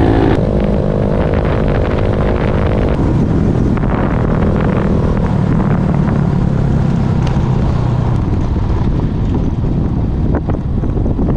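Honda Monkey's small single-cylinder four-stroke engine running under way, with heavy wind buffeting the microphone. The engine note drops about three seconds in as the bike slows, and it fades under the wind noise in the second half.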